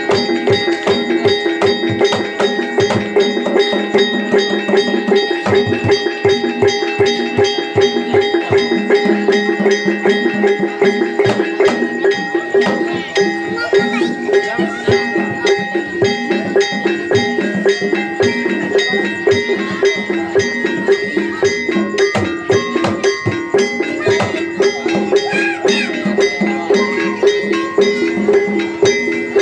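Javanese gamelan ensemble playing kuda kepang dance music: bronze gongs and metallophones ring out a fast, repeating pattern over drum strokes, which are deepest in the first few seconds.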